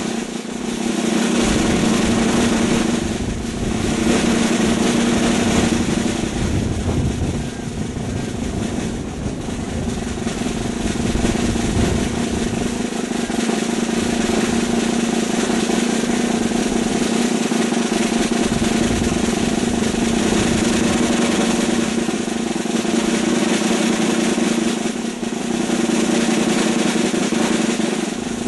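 Steady, unbroken drum roll that dips briefly in level a few times.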